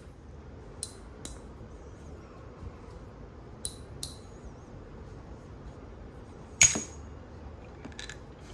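Titanium thumb chucks being flipped, their metal parts clicking together in about six sharp, separate clinks that ring briefly. The loudest comes about two-thirds of the way through.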